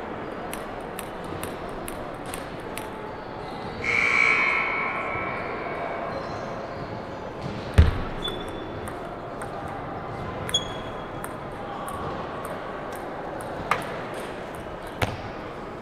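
Table tennis rally in a large gym hall: the celluloid ball clicking sharply off paddles and table, with a few short sneaker squeaks. A brief noisy burst comes about four seconds in, and a heavy thump of a foot landing on the wooden floor is the loudest sound, just before eight seconds.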